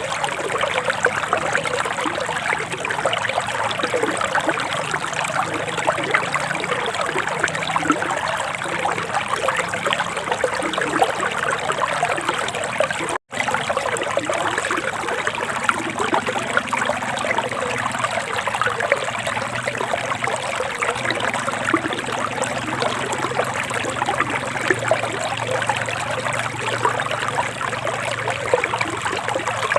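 Forest stream running and trickling steadily over rocks. It drops out for an instant about 13 seconds in, then carries on.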